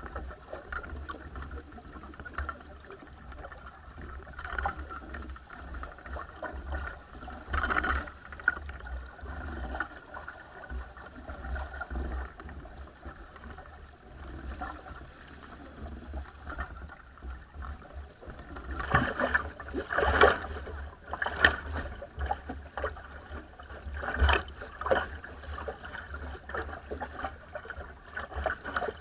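Water rushing and splashing along the hull of a small wooden sailing dinghy under way, with wind buffeting the microphone as a steady low rumble. Louder splashes of spray come once about a quarter of the way in and several times in quick succession about two-thirds of the way through.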